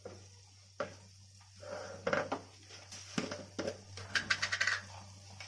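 Steel kitchen utensils clinking and knocking, a few separate knocks and then a quick run of clinks about four seconds in, over a faint steady hum.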